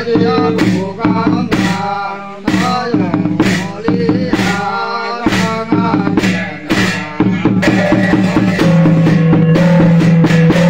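Thầy tào ritual music: drum and percussion strikes under a wavering melodic line. From about eight seconds in, a steady held note sounds under quicker, denser strikes.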